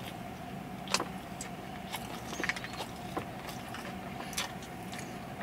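A person chewing a bite of fried chicken sandwich with the mouth closed: scattered soft mouth clicks and crunches, the sharpest about a second in, over a steady faint hum.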